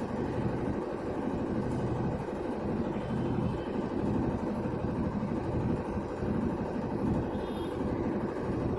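Whirlpool White Magic Pro XL 800S washing machine running steadily near the end of its program: a continuous drum and motor rumble with a low hum.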